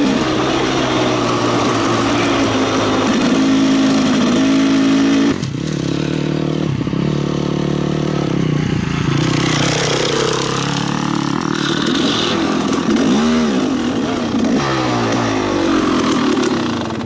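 Two-stroke dirt bike engine under way, heard from the rider's helmet camera with wind noise over it. The revs rise and fall with throttle and gear changes, with a sudden drop in level about five seconds in.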